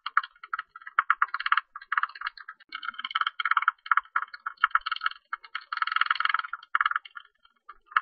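Tube-nosed bat calls: rapid trains of clicks and buzzes in bursts of about half a second to a second, with short gaps between them, thinning out near the end.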